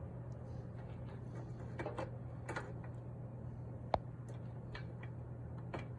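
Scattered light clicks and taps of handling metal parts and tools, the sharpest about four seconds in, over a steady low electrical hum.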